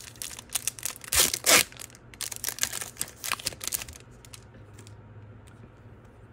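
A Topps Chrome Platinum Anniversary baseball card pack wrapper being torn open and crinkled, with two louder rips about a second and a half in. The crackling dies down after about four seconds, leaving a few faint ticks.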